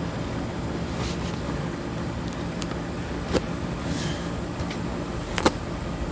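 A parcel being handled and opened: a few sharp clicks, the loudest about five seconds in, and a brief rustle, over a steady low rumble.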